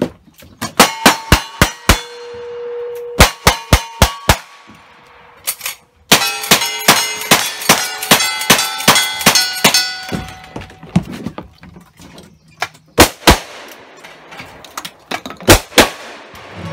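Cowboy action shooting stage: strings of rapid gunshots from revolvers and a lever-action rifle, each shot followed by the clanging ring of struck steel targets. The fastest, densest string of shots comes in the middle, with short pauses between the strings.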